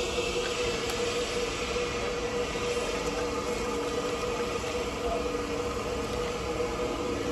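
Steady machine hum: a constant mid-pitched drone over an even rushing noise, with no change in level.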